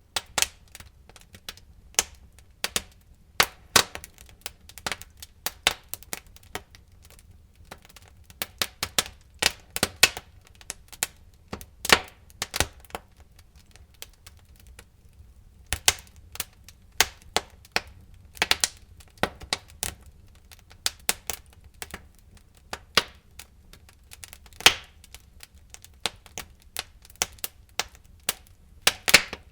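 Wood fire burning in a fireplace, crackling with irregular sharp pops and snaps over a low steady rumble of the flames.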